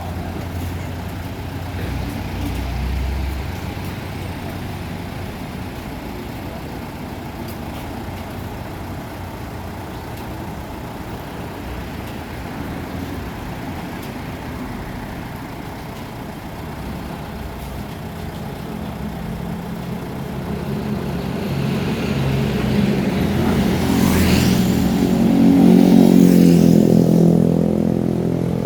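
A road vehicle's engine running, growing louder over the last third as it drives up and passes close by.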